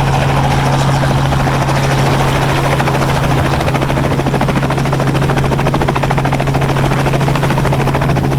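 Helicopter running close by: a loud, steady drone with a fast, even chop of the rotor blades.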